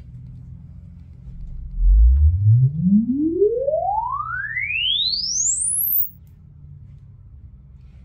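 Measurement sine sweep played through the loudspeakers during the BACCH crosstalk-cancellation processor's calibration: one pure tone gliding smoothly up from deep bass to a very high whistle over about four seconds, starting about two seconds in and cutting off suddenly.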